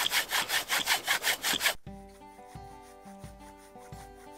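Folding saw cutting through a spruce log in quick, even rasping strokes. A little under two seconds in the sawing cuts off abruptly, leaving quiet background music of held notes.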